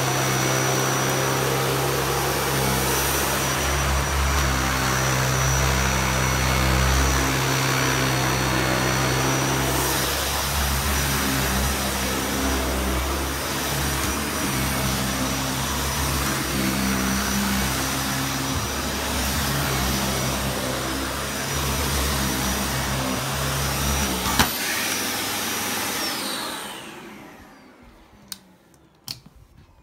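Dyson Cinetic Big Ball upright vacuum cleaner running steadily on carpet, picking up pine needles. After a click about 24 seconds in, the motor is switched off and spins down with a falling whine. A few light clicks follow near the end.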